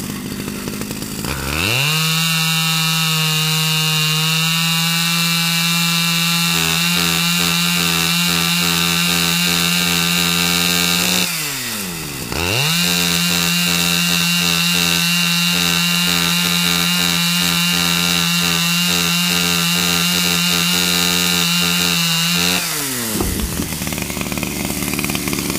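Chainsaw engine revved to full throttle and held there for about ten seconds, dipping off the throttle briefly about halfway, then run flat out again for another ten seconds before dropping back to idle near the end.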